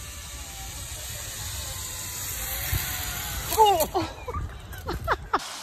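A steady rushing hiss grows louder as a rider speeds down a zip line. Then comes a sudden thump as the rider falls onto the path, followed by cries and shouts.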